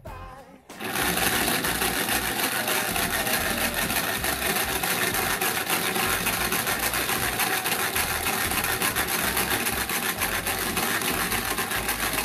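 Crayola Paint Maker toy's motorized mixer running with a paint pot in it: a loud, even, rapid rattling buzz that starts about a second in. The toy is very noisy while mixing.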